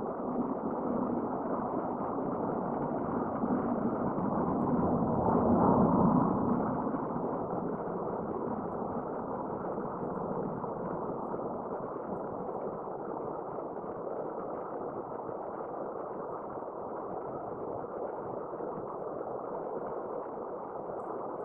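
Steady rushing of a mountain stream flowing over rocks, swelling louder about five seconds in, then holding level.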